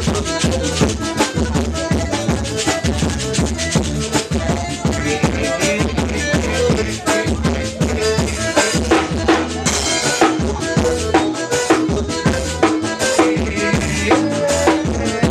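A band playing with a drum kit keeping a steady beat of kick, snare and cymbal strokes, over bass and other pitched instruments.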